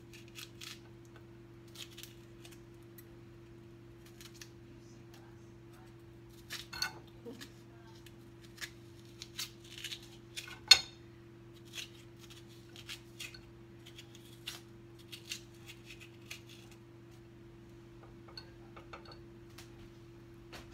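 Irregular scraping and light clicks of a utensil scooping the seedy flesh out of halved zucchini against a ceramic plate, with one sharper knock about ten seconds in. A steady low hum runs underneath.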